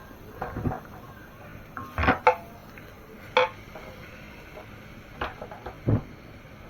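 Spatula knocking and scraping against a frying pan in a handful of irregular clanks, stirring chopped shallots, garlic, ginger and celery leaves frying in oil.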